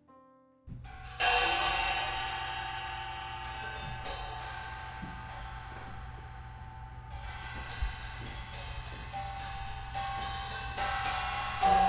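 Improvised percussion: cymbals come in about a second in and keep up quick, uneven strokes over a sustained ringing tone, after a piano chord dies away at the start.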